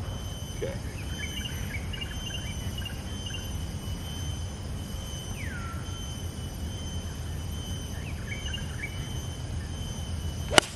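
Steady drone of insects with scattered bird chirps, then, near the end, the single sharp click of a 7-iron striking a golf ball on a tee shot.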